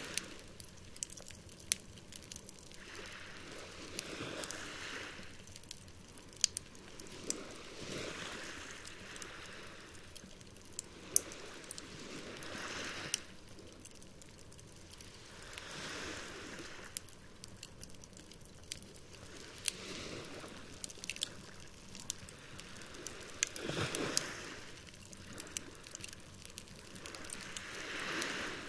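Wood campfire crackling with frequent sharp pops, over small waves washing ashore in a slow swell about every four seconds.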